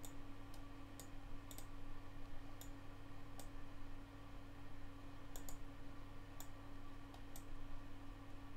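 Computer mouse button clicking, a dozen or so faint, sharp clicks at irregular intervals as spline points are placed one by one. A steady low electrical hum runs underneath.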